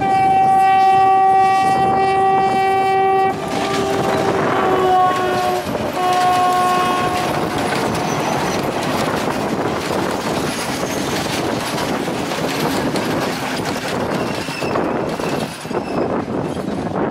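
Sri Lanka Railways Class M6 diesel locomotive sounding its horn: one long blast of about three seconds, then two shorter blasts a little lower in pitch as it passes. After that its passenger coaches roll by with steady clattering wheels.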